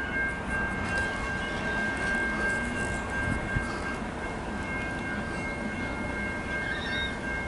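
Distant CSX freight train approaching: a low rumble, with a steady high tone of several notes held over it.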